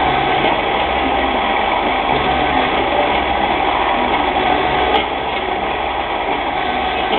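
CNC-converted mini lathe running steadily, its motors and drive giving a continuous mechanical whir. A click about five seconds in is followed by slightly quieter running.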